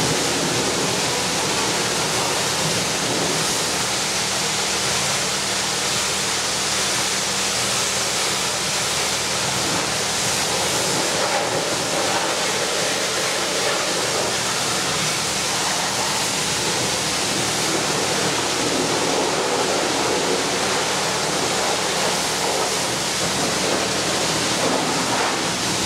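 High-pressure water spray from a pressure washer wand hissing steadily and without a break, with a faint low hum underneath.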